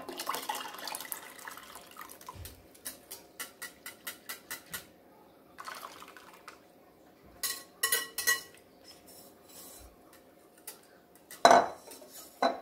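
Kulfi milk mixture pouring from a ceramic bowl into a glass dish, with a wire whisk scraping the bowl and tapping on its rim in a quick run of taps, then clinking against the glass dish. Near the end the bowl is set down with a loud knock.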